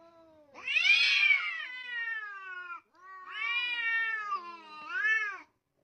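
Domestic cat caterwauling in a face-off with another cat: two long, drawn-out yowls that rise and fall in pitch, the first louder. It is a hostile threat call between two cats squaring up.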